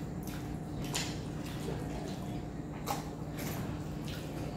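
Eating sounds: wet squelching of rice and dal being mixed by hand and eaten, with a few short, sharp wet smacks, the loudest about a second in and near three seconds.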